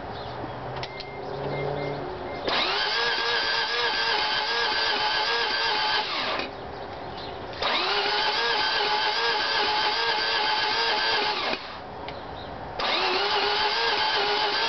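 The starter of a 1988 Mazda RX-7 cranking its rotary engine in three tries of about four seconds each, with short pauses between, and the engine not catching. The cranking has an odd, steady whine that the owner takes for the starter acting up.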